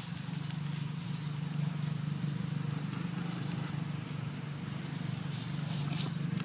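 Footsteps on dry leaf litter and grass, heard as scattered short rustles over a steady low hum.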